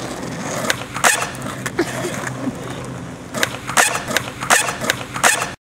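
Skateboard wheels rolling on asphalt, with several sharp clacks of the board hitting the pavement, most of them in the second half. The sound cuts off suddenly near the end.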